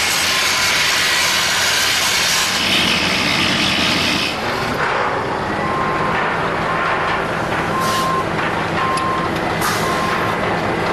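Heavy construction equipment running with a steady engine hum. A loud hiss fills the first four seconds, then a backup alarm beeps about once a second, five times, with a few sharp clicks.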